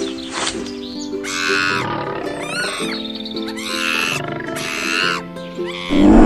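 Cartoon lion roaring, starting suddenly near the end and louder than anything before it, over background music with sustained notes. Several short, high-pitched animal cries come earlier.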